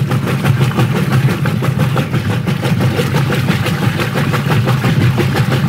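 Whirlpool top-loading washing machine agitating a load: a steady motor hum under the agitator churning clothes through the wash water.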